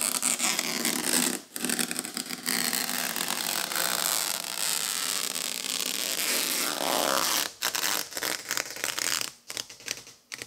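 Clear protective plastic film being peeled off a new Whirlpool dishwasher's control panel and door: a long, continuous ripping rasp with a couple of brief pauses, breaking into shorter tugs near the end.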